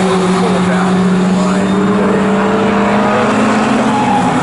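Engines of classic GT race cars running hard as they pass, a strong steady engine note that slowly drops in pitch, over a rush of wind and tyre noise.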